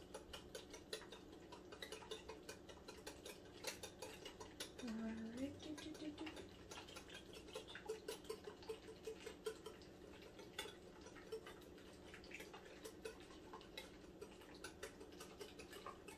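Wire whisk ticking lightly and rapidly against a glass bowl as warm lemon curd is whisked between microwave cooking intervals.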